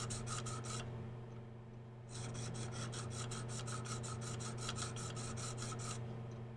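Tapered diamond sharpening rod rubbing back and forth in a knife's serration, quick light strokes about four or five a second, with a pause of about a second near the start. The serration is being honed until its marker ink is worn off.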